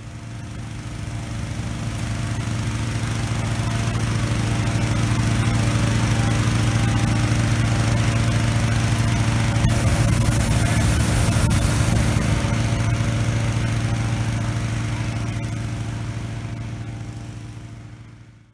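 Hot-air balloon inflation: the steady engine hum of a petrol-driven inflator fan, mixed with the rushing roar of the propane burner firing into the envelope. It fades in at the start and fades out near the end.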